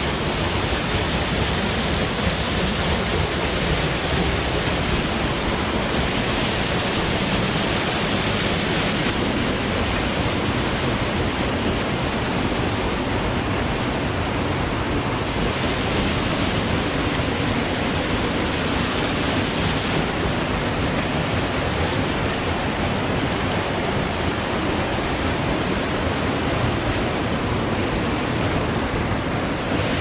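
Steady rush of water pouring down a creek cascade close by, an even noise that does not change.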